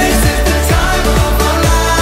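Upbeat dance-pop song with a steady beat and a singing voice.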